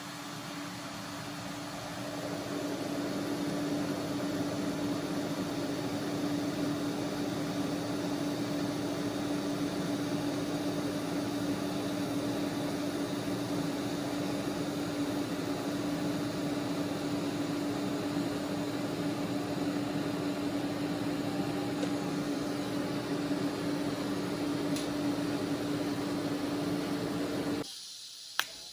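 TIG welding arc on 18-gauge stainless steel at about 35 amps: a steady hissing buzz with a steady hum. It builds over the first two seconds and cuts off about a second before the end, followed by a single click.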